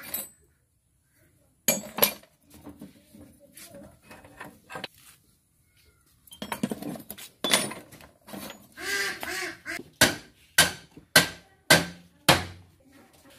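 Steel spanners and rotavator parts clinking and clattering as they are handled, then about five sharp metal knocks a little over half a second apart near the end.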